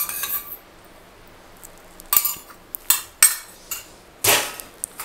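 Metal spoon and kitchen containers clinking and scraping: several short separate clatters, with a longer scrape about four seconds in.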